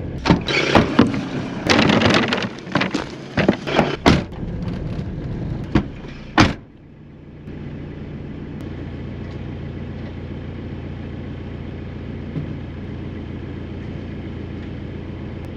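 Car driving on a dirt track, heard from inside the cabin: road noise with a run of sharp knocks and rattles. About six and a half seconds in, this gives way to the engine idling with a steady low hum.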